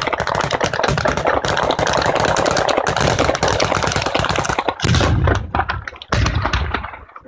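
Batteria alla bolognese: a long ground-level chain of firecrackers going off in a rapid, continuous crackle of bangs. About five seconds in it breaks into a few heavier separate bangs, then dies away near the end.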